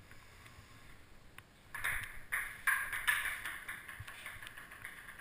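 Ping pong rally: the celluloid ball clicking sharply off the paddles and the table, a quick series of hits starting a little under two seconds in, with some ringing after each hit.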